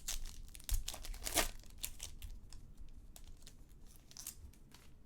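Trading cards and their packaging being handled: a run of short crinkling, rustling and scratchy bits, busiest in the first second and a half and sparser after that.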